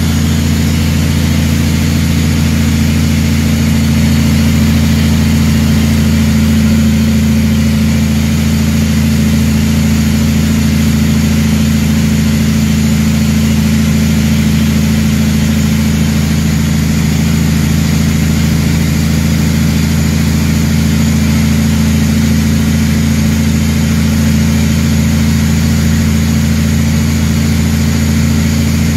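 Heavy truck engine running steadily as the truck cruises down the highway, heard from inside the cab as an even, low drone.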